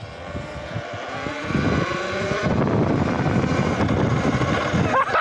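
Electric dirt bike's motor whining under load as it climbs a hill, the whine rising slowly in pitch over a rush of tyre and wind noise. It gets louder about a second and a half in.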